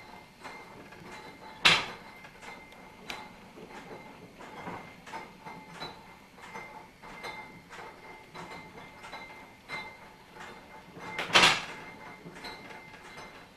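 Railcar of the Oberweißbach mountain railway running slowly, heard from inside: a constant light clicking and rattling, with two sharp knocks, one about two seconds in and another about ten seconds later, over a faint steady whine.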